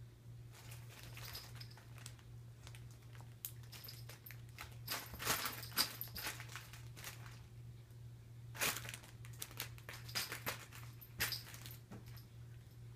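A crinkly nylon cat play tunnel rustling and crackling as two cats crawl through it and paw at it. The crinkling comes in irregular spells, loudest around the middle and again twice near the end, over a faint steady low hum.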